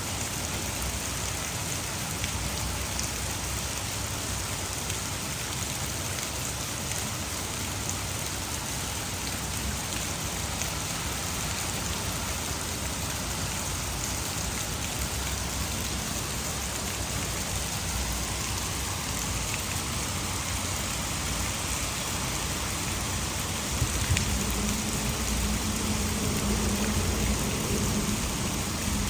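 Heavy rain pouring steadily, with water falling over a nearby hydroelectric dam. A low rumble comes in near the end.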